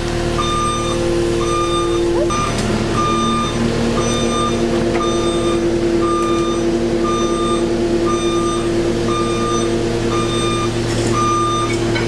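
A vehicle's reversing alarm beeping about once a second over a running engine, whose note shifts about two seconds in.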